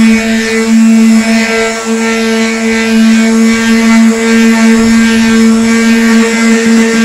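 Black & Decker electric sheet sander with a dust bag running steadily with a humming motor, its sandpaper scrubbing over a painted metal body panel to take off chipping paint.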